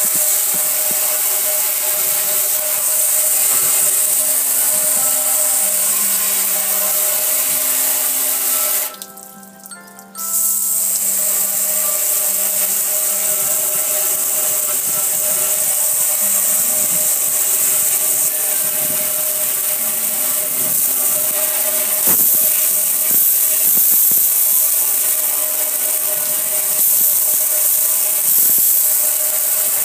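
A narrow high-pressure water jet hissing steadily as it sprays onto a metal gas grill. It cuts out for about a second roughly a third of the way in. Music plays underneath.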